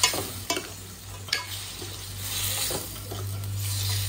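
Steel ladle stirring boiled mutton pieces into sizzling onion and chilli masala in a stainless steel kadai. The ladle clinks against the pan about three times in the first second and a half.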